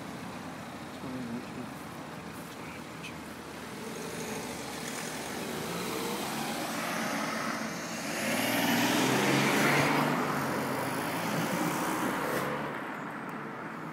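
A car going past, its engine and tyres growing louder to a peak about eight to ten seconds in, then fading away.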